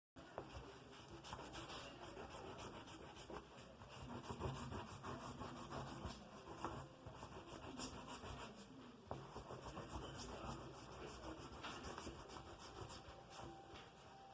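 Faint pencil scratching and rubbing on paper, full of small ticks, over a steady low background rumble. It starts abruptly just after the start.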